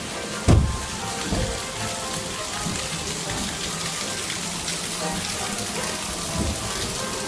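Steady rushing and splashing of water in a log-flume channel, with soft music playing under it. A loud low thump about half a second in, with two lighter ones about a second later and near the end.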